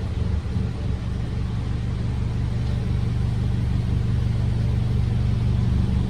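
BMW M135i's 2.0-litre turbocharged four-cylinder engine idling steadily just after start-up, a low, even exhaust note.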